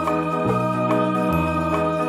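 Background music carried by a sustained organ-like keyboard sound, over a bass line that steps to a new note about every second.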